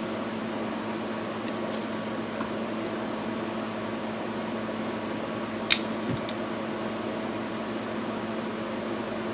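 Steady hum of a fan or bench equipment, with a few small clicks and one sharp click about halfway through as a handheld leather belt hole punch pops holes in a soft pad.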